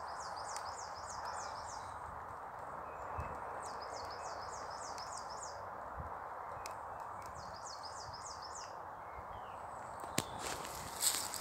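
Shallow stream running over rocks, a steady rush of water, while a small songbird sings three short phrases of quick, high repeated notes. A few sharp knocks come near the end.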